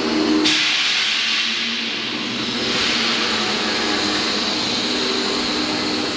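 Concrete mixer plant machinery running steadily with a low hum. A loud hiss breaks in about half a second in and swells again around the middle.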